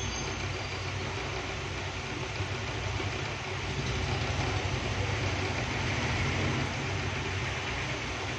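Steady low rumble with an even hiss of background noise.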